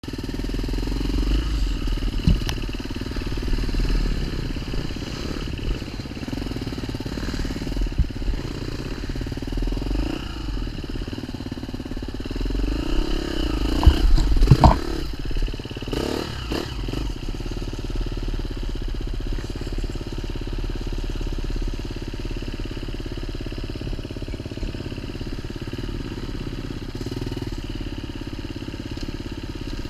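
Off-road motorcycle engine running steadily, with a cluster of sharp knocks and clatter about halfway through.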